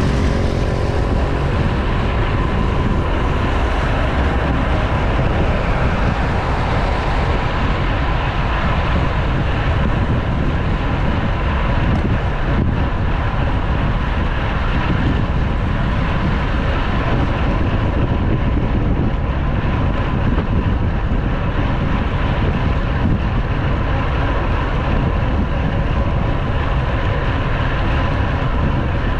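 Steady wind rush on the microphone of a handlebar-mounted GoPro on a road bike moving at speed, heaviest in the lows.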